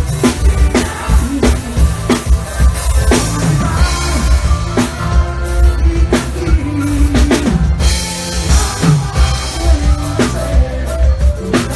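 Live forró band playing an instrumental passage: a drum kit keeps a steady, driving beat of bass drum and snare over a bass line, with melodic instrument lines above and no singing.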